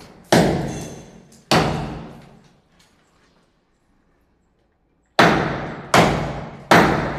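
Hand hammer striking a cracked concrete ceiling beam, chipping off the concrete cover to expose the steel reinforcing bar inside. Two blows, a pause of about three seconds, then three more blows about a second apart, each echoing away.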